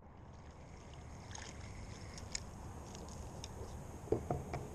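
Outdoor ambience at a lake's edge: a steady low rush of wind and lapping water. A few faint clicks, then a short louder burst of handling sounds about four seconds in.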